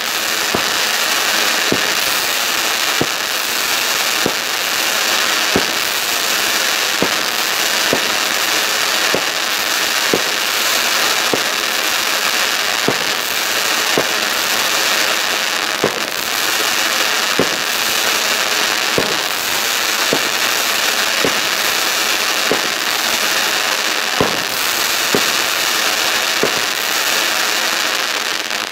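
A 25 mm noise-reduced fireworks battery firing long-burning crackling comets: a dense, continuous crackle and hiss, with a soft pop about once a second as shots launch.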